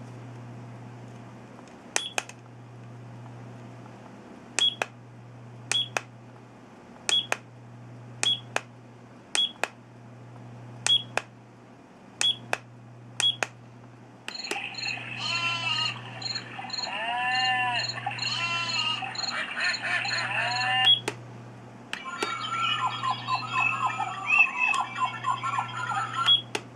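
A digital nature-sound alarm clock gives a series of short button beeps as its settings are stepped through. It then plays one of its built-in nature sound tracks through its small speaker for about six seconds. After another beep it switches to a different nature track.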